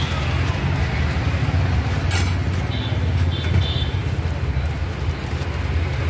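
Steady low rumble of street traffic and a busy street-food stall, with a sharp crackle about two seconds in and a few short high blips just after.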